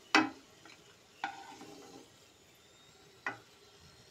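Wooden spatula knocking against a kadhai and a small steel bowl as fried nuts are scooped out of hot ghee. There are three sharp knocks: the first is the loudest, and the one about a second in is followed by a short metallic ring from the bowl.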